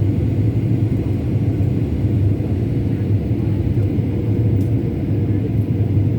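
Steady, unbroken low drone of a vehicle in motion, as heard from inside it.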